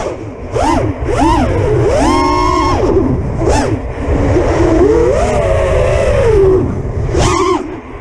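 A 6-inch FPV quadcopter's brushless motors and propellers whine, the pitch jumping up and dropping back again and again with hard throttle punches and chops. It holds steady for a moment around the middle, and wind rushes on the onboard camera's microphone.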